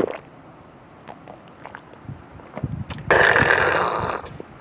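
A short burp right at the start after a swig of beer, then a few faint clicks. About three seconds in comes a loud breathy hiss lasting just over a second.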